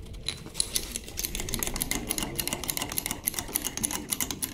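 Orange hydraulic toe jack being pumped by its handle to lift a stacker's straddle leg: quick, uneven metallic clicking and rattling from the handle and pump.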